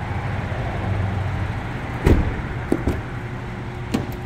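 A 2023 GMC Terrain's car door shutting with one solid thump about two seconds in, followed by a few lighter latch and handle clicks as a door is worked, over a steady low hum.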